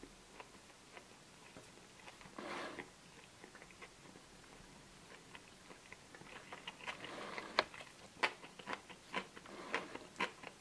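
Close-miked biting and chewing of a McDonald's cheeseburger: a soft bite about two and a half seconds in, then from about six seconds a run of small wet clicks and crunches as the mouthful is chewed, among them the crunch of the pickle slice.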